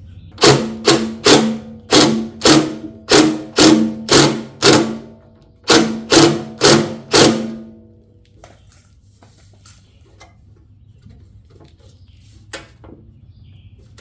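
About a dozen loud, evenly spaced ringing knocks, a little over half a second apart, with a short break about five seconds in; they stop before the last few seconds, which hold only faint background noise.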